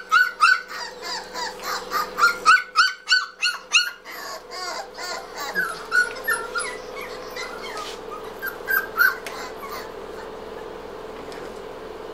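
Dog yipping and whimpering: many short, high-pitched yelps in quick succession that thin out and stop about nine seconds in, over a steady hum.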